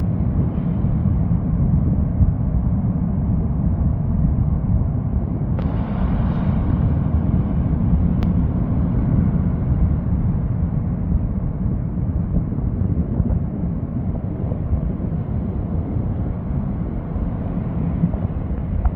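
Steady low rumble of wind buffeting the microphone over heavy surf, with a brief hissier surge about six seconds in and a single sharp click a little later.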